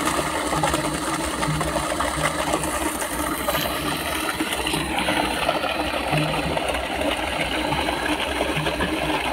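Water from a solar-powered 7.5 hp Lubi monoblock pump gushing out of the discharge pipe and splashing steadily into an upright pipe, with a low rumble underneath.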